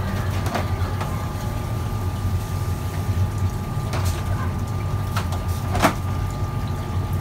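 Stacked black plastic eel baskets knocking together as they are lifted and set on the stack, a handful of sharp knocks with the loudest about six seconds in, over a steady low machine hum.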